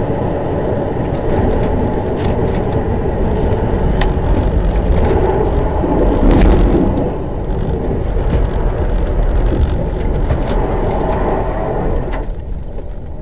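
A car on the move: a steady rumble of road and engine noise with scattered faint clicks, swelling briefly about halfway through.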